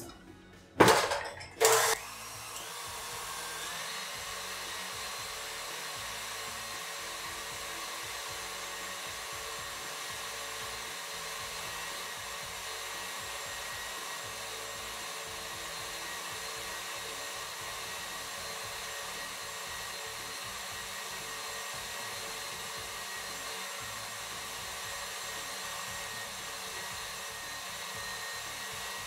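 Two knocks, then a stand mixer's motor spins up, its whine rising for a couple of seconds, and runs on with a steady whir at high speed, its wire whisk whipping egg whites into meringue while hot sugar syrup is poured in.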